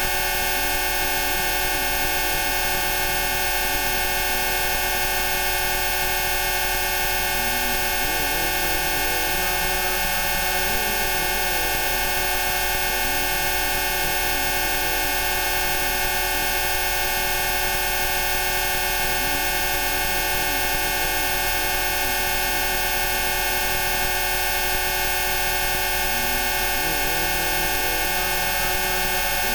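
Many steady electronic pure tones, a stack of Rife frequencies, sounding together as one unchanging chord at a constant level. Fainter tones waver up and down beneath it.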